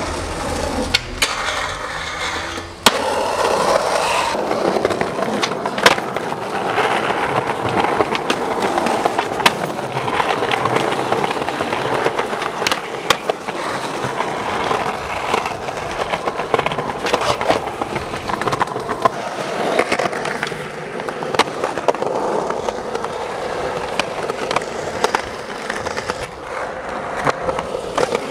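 Skateboard rolling on pavement and concrete, its wheels making a steady rolling noise. Sharp clacks of the board striking the ground come now and then, the loudest about three and six seconds in.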